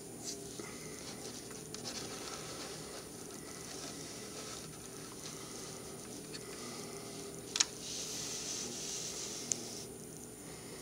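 Faint scraping and rustling of a snap-together plastic model car, a 1:24 VW New Beetle, being rolled across a woven placemat and handled, over a steady low hum. A sharp click about seven and a half seconds in and a smaller one about two seconds later.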